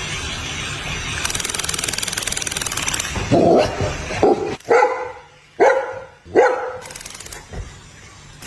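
A dog barking: about five short, sharp barks, beginning about three seconds in after a stretch of steady background noise.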